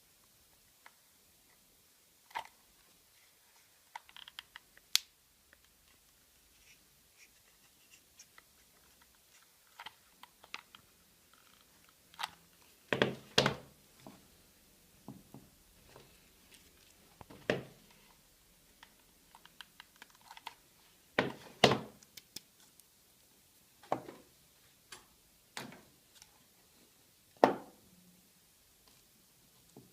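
Irregular knocks, taps and clicks of small parts being handled and set down during hand assembly, with the loudest knocks about 13, 21 and 27 seconds in. No motor is running.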